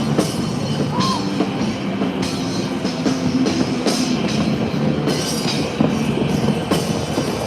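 Loud rock music with a driving drum beat.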